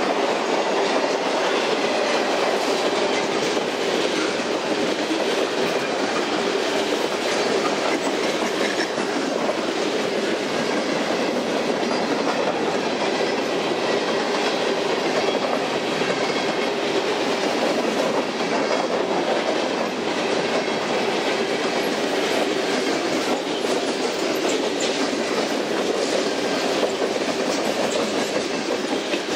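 Freight cars of a long train rolling past at close range: a steady, unbroken noise of steel wheels running on the rails, with clickety-clack over the rail joints.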